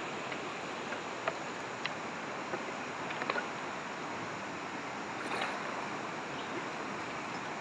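Steady rush of flowing river water, with a few faint clicks over it.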